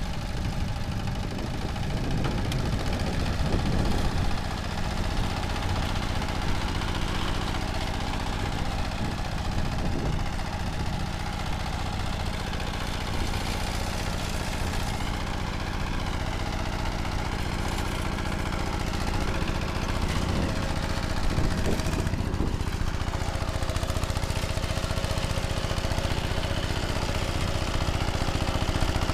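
Engine of a ZUBR 10 hp walk-behind tractor running steadily while tilling soil with its rotary tiller.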